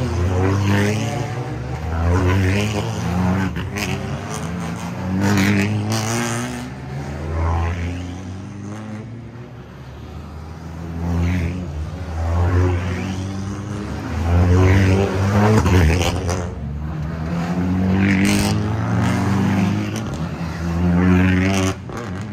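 Turbocharged four-cylinder TCR touring car engines running at low speed as the cars roll out one after another. Each engine note swells and fades as a car passes close by, with the pitch rising and falling.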